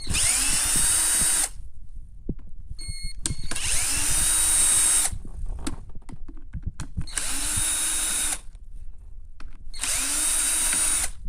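Cordless drill-driver run in four short bursts, each spinning up quickly then cutting off, with small clicks of handling between them: screws being driven out of the pressure washer's housing to get at its capacitor.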